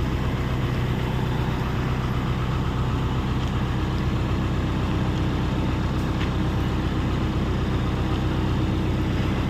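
Hyundai 85A Smart excavator's diesel engine idling steadily.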